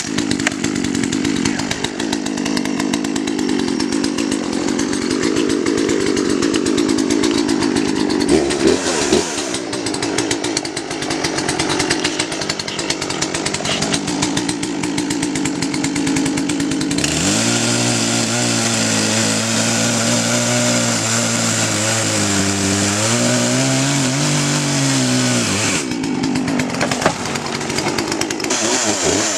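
Poulan P3816 38 cc two-stroke chainsaw engine running steadily after a restart. About halfway through, the engine takes on a clearer pitched note with more hiss for around nine seconds. That note dips near its end, then the engine settles back to its earlier sound.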